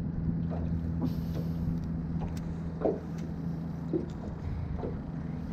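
A steady low motor hum, with scattered faint clicks.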